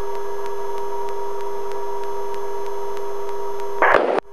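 Helicopter in flight heard from the cockpit: a steady whine of several even tones over a faint hiss. Near the end it is cut by a short burst of radio voice.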